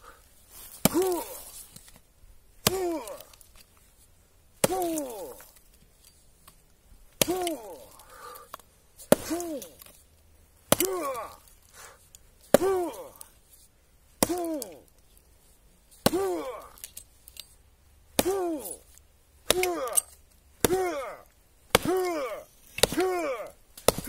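Hatchet chopping into a rotten log: about fifteen blows, roughly every two seconds at first and about one a second near the end, each followed by a short pitched grunt of effort.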